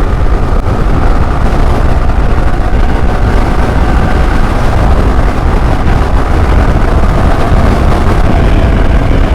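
Motorcycle riding at speed, heard from the rider's microphone: a heavy, unbroken wind rumble over a steady engine note.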